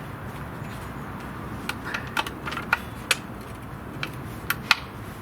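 Irregular sharp clicks and light knocks, most of them in the second half, from adjusting a metal pipe in a cutting chop saw's clamp over a steady low hum. The saw motor is not running.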